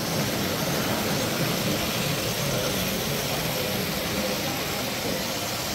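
Steady, even background din of a busy exhibition hall, a constant hiss with no single sound standing out.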